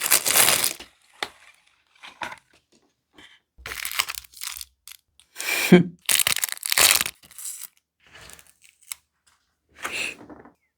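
Packaging being handled and torn open: a run of irregular crinkling and tearing rustles with short gaps between them.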